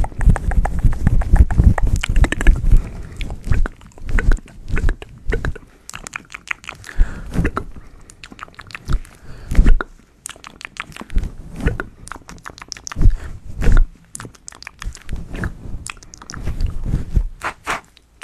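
Close-miked ASMR hand sounds: gloved hands rubbing, scratching and plucking at a fluffy microphone windscreen and moving around it, giving irregular crackling and clicking with heavy soft thumps in the first few seconds.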